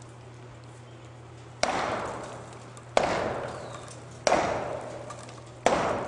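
Sledgehammer striking the base of a concrete stave silo four times, about one blow every 1.3 seconds, each hit dying away over about a second. The blows are knocking out the base to bring the silo down.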